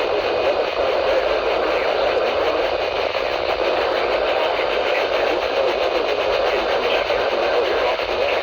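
Steady static hiss from a weather radio receiver on a weak NOAA Weather Radio signal, with no change or break.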